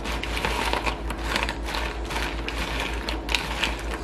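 Crispy tofu being tossed in sauce in a bowl with a utensil: a quick, busy run of clicks and scrapes against the bowl.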